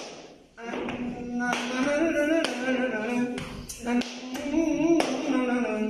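A man singing unaccompanied, drawing out long wavering notes in Arabic style, with sharp taps beating out the rhythm. The singing drops away briefly about half a second in.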